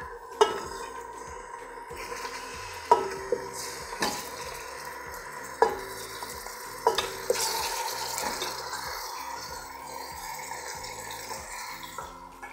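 Raw chicken pieces sizzling as they drop into hot olive oil and ghee in a metal pot, being seared to seal the meat. A spoon knocks sharply against the bowl and pot about six times in the first seven seconds.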